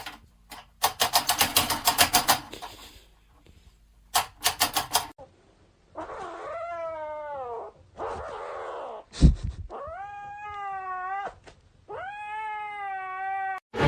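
A cat yowling: three long, drawn-out meows, each sliding in pitch, in the second half. Before them come two runs of rapid clicks or taps, and a single thump falls between the first and second yowl.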